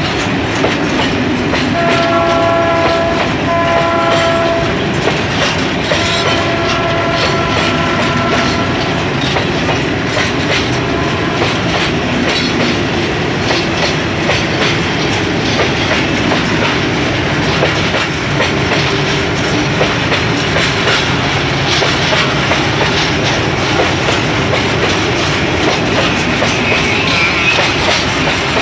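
Freight train of oil tank cars rolling past, wheels clicking steadily over the rail joints under a continuous rumble. The ALCO RSD-16 diesel locomotive's horn sounds from the head of the train: two short blasts about two seconds in, then one longer blast around six seconds in.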